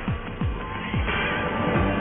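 Background music: a string of low drum strokes, each dropping in pitch, with held chords swelling in over the second half.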